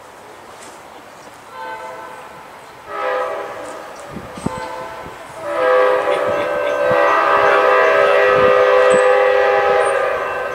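Locomotive horn sounding from a train not yet in sight: two short blasts, then one long held blast from about five and a half seconds in that is much louder.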